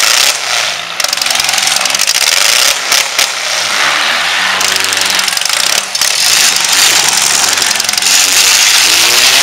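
Four-cylinder compact demolition derby cars' engines running and revving, their pitch rising and falling, under a loud steady wash of noise.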